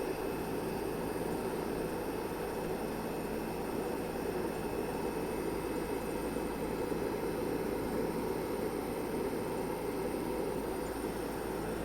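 Poolex Q-Line 5 pool heat pump running steadily: an even whir of its fan and compressor.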